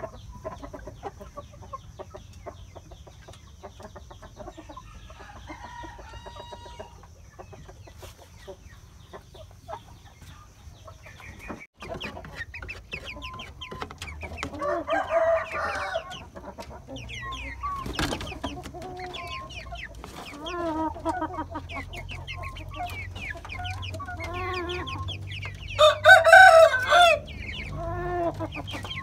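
Young Bangkok game chickens clucking and calling, quieter at first and louder after about twelve seconds, with one loud crow near the end.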